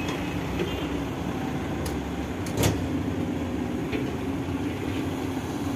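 Heavy diesel engines of a Cat hydraulic excavator and coal trucks running steadily, with a sharp knock about two and a half seconds in and a few fainter clicks.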